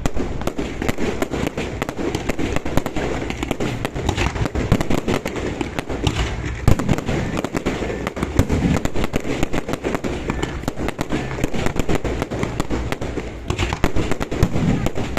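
Fireworks going off in a dense, unbroken run of bangs and crackles.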